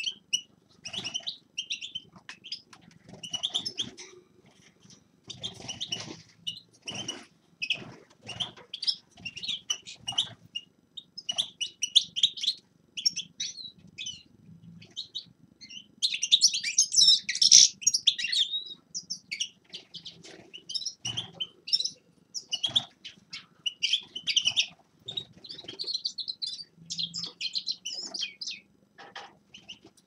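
Several caged finches chirping and twittering in short phrases of song, with a denser run of song about halfway through. A few short soft knocks are mixed in.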